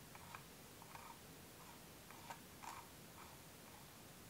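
Faint, irregular clicking of a computer mouse's scroll wheel over near-silent room tone.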